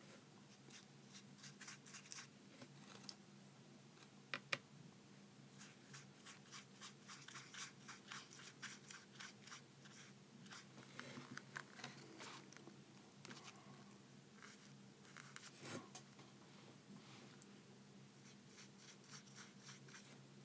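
Faint, quick scratchy strokes of a paintbrush dabbing and brushing water paint onto paper, coming in irregular runs with a sharper click about four and a half seconds in, over a low steady hum.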